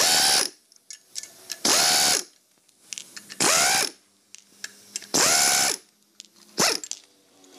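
Air-powered wrench driving the bolts on a rear axle's brake backing plate: four short runs about every second and a half, each speeding up and winding down, then a brief blip near the end.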